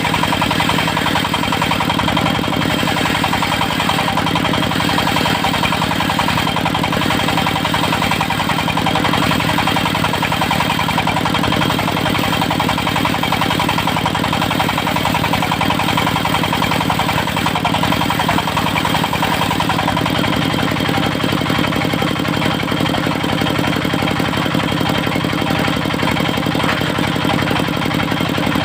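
Engine powering a portable circular sawmill, running steadily, its note shifting slightly about twenty seconds in.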